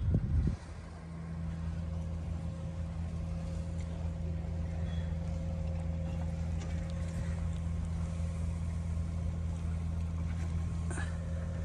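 A sailing yacht's auxiliary engine running at a steady low drone as the boat motors out of the harbour. A brief louder low thump comes right at the start.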